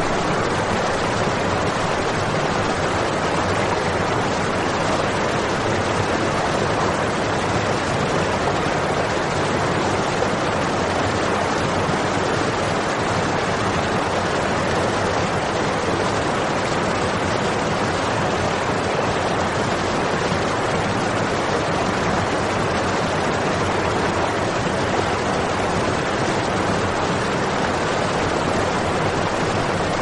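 Fountain water pouring in a steady column from the spout of a giant hanging-teapot sculpture and splashing into the basin below: an even, continuous rush.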